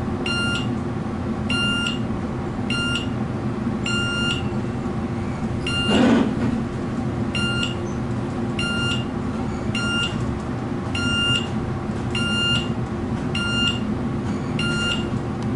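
Short electronic beep from the elevator's signal, repeating about every second and a quarter, over the steady low hum of the traction elevator car travelling upward. A brief louder rush of noise comes about six seconds in.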